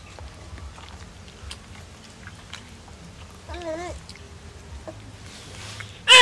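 Baby macaque eating soft jelly from a hand, with small wet chewing and lip-smacking clicks. About halfway through comes a short wavering squeak, and right at the end a louder brief high cry.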